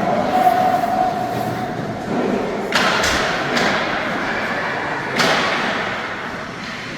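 Sharp thuds and slams from game play echoing in a large hall: three distinct hits, about three seconds in, again a second later, and once more near five seconds, over a low background of voices.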